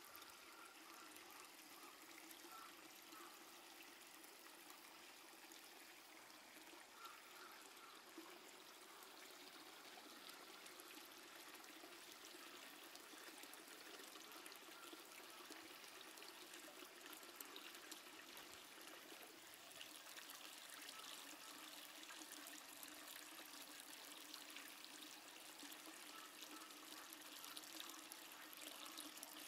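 Near silence: a faint, steady rushing background noise with no distinct events.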